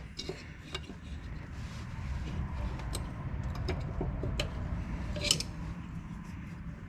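Scattered metallic clinks and taps of tools and steel parts being handled while new springs are fitted to a planter's closing wheel assembly, with a sharper clink about five seconds in, over a steady low rumble.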